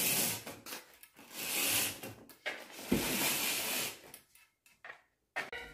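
Roller blind being raised by pulling its bead chain: three pulls of about a second each as the blind winds up, with a short thump about three seconds in.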